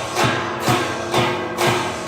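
Background music with a steady beat, about two hits a second over sustained instrumental tones.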